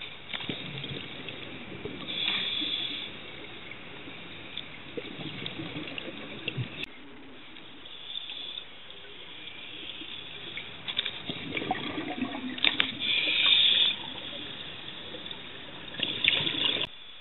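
Scuba regulator breathing heard underwater: a few hissing inhalations with irregular bubbling of exhaled air between them.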